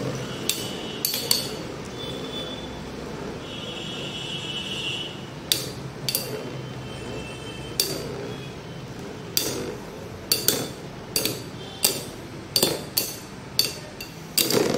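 Two metal Beyblades, Storm Pegasus and a defense-type combo with an Eagle metal wheel, spinning in a plastic stadium: a steady whir from the tips on the floor, with sharp metallic clinks as the tops collide. The clinks are sparse at first and come about two or three a second in the second half, as the attack-type Pegasus keeps bouncing off the defense top without knocking it out.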